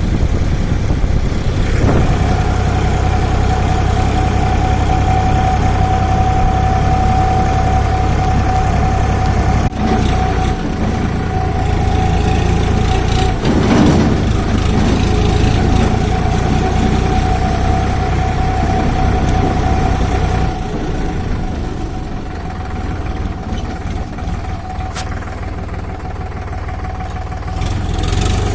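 A tractor engine running steadily at a low, even pace, with a steady tone over the hum. It gets quieter about twenty seconds in.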